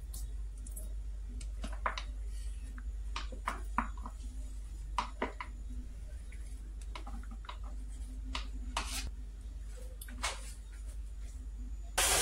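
Plastic spatula scraping soft margarine from a tub and tapping against the tub and a stainless steel mixing bowl: scattered light clicks and taps. Right at the end a stand mixer switches on with a loud whirr.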